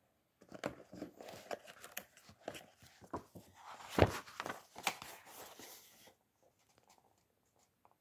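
Paper rustling and crinkling with handling clicks as a book or stack of paper sheets is moved about, with one sharp knock about four seconds in; it stops about six seconds in.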